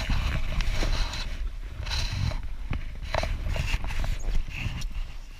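Irregular knocks, scuffs and rustling as a person climbs into an inflatable boat and settles in, a few short noisy bursts among them, over a steady low rumble.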